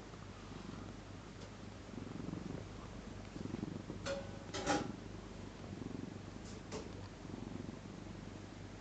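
Sleeping cat snoring, a soft rasp on each breath about once a second. A couple of short sharp sounds cut in about four and a half seconds in.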